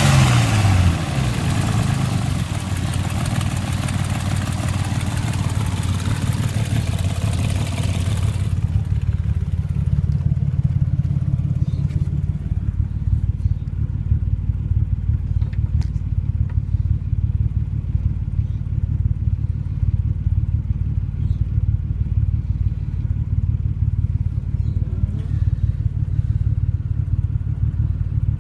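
Nissan RB25DET turbocharged straight-six running at idle, with a broad hiss over the first eight seconds or so that stops suddenly, then a steady low idle with faint ticking. The owner takes the engine's sound for stuck valves and an exhaust leak.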